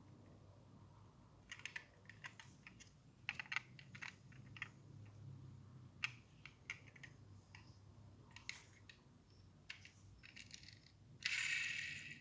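Small light clicks and taps of a diecast model car and its plastic and cardboard packaging being handled during unboxing, with a louder crinkling rustle of packaging for about a second near the end.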